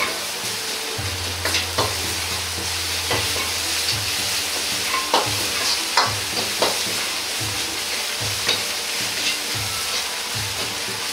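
Ground pork with garlic, ginger and doubanjiang sizzling in a hot wok, stirred with a metal ladle. The ladle scrapes and clinks against the wok every second or so over a steady hiss of frying.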